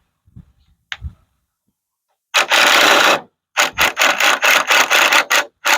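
Hand saw cutting through a wooden board: one long stroke, then a run of quick strokes about three or four a second.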